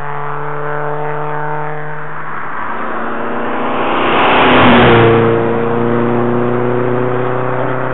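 A historic rally car's engine approaching under power and passing close by. It is loudest about four to five seconds in, and its engine note drops in pitch as it goes past.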